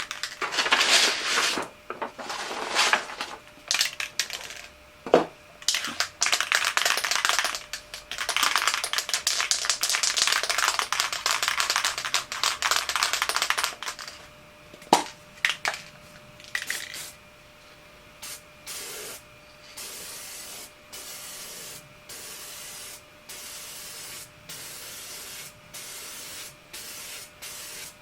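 Aerosol spray can hissing in bursts: a few short sprays, then one long spray of about five seconds near the middle. In the second half it gives a run of short, evenly spaced puffs about once a second, with a couple of sharp knocks in between.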